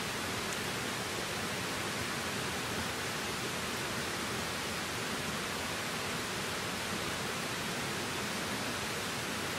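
Shallow stream babbling over a gravel bed, a steady hiss of moving water.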